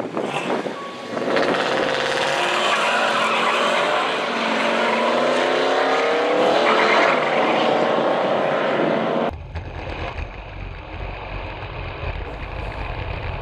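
Chevy LUV pickup's small-block V8 at full throttle, launching off the drag-strip line and pulling hard, its pitch climbing and stepping as it shifts through the gears. About nine seconds in, the sound switches to a deep steady rumble with wind buffeting, heard from inside the truck's bed at speed.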